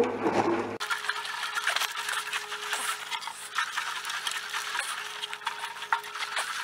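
Vinegar sloshing and rattling inside the International 400 tractor's rusty steel gas tank as the tank is shaken to loosen the rust: a dense, irregular scraping rattle that starts abruptly just under a second in.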